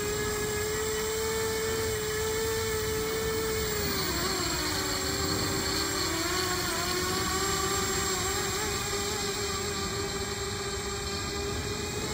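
Small quadcopter's brushless motors and propellers running with a steady high whine; the pitch dips about four seconds in, then wavers and settles.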